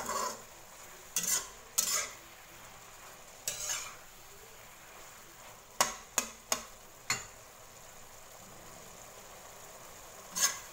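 Plastic slotted spatula scraping and clacking against a white-coated wok as mushrooms and chicken in a little sauce are stir-fried, with a steady low sizzle underneath. The strokes come irregularly, with a cluster of quick taps about halfway through.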